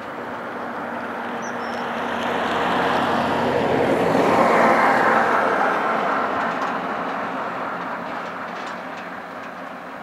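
A road vehicle passing by: its engine and tyre noise grows louder, peaks about halfway through, then fades away.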